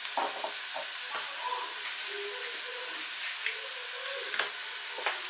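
Chopped onions, peppers and spices frying in sunflower oil in a frying pan: a steady sizzling hiss with a few sharp crackles scattered through it.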